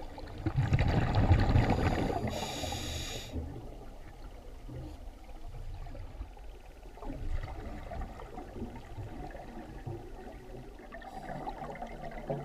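Underwater sound of a scuba diver breathing through a regulator: a rumble of exhaled bubbles about half a second in, followed by a short hiss from the regulator. Quieter bubbling follows, and another short hiss comes near the end.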